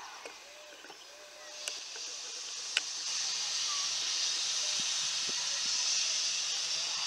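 Steam locomotive venting steam: a steady hiss that swells about a second and a half in and then holds loud, with a couple of sharp clicks.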